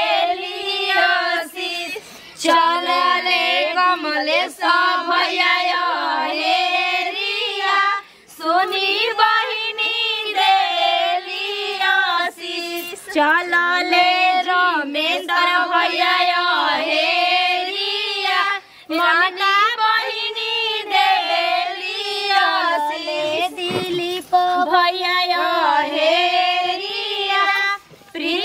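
Several women singing a Bhojpuri Godhan folk song together in high voices. A few knocks are heard as the long wooden pestle they hold together strikes the ground.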